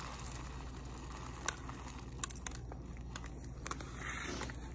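Faint crinkling of a plastic bag of multigrain rice being handled, with a few light clicks scattered through.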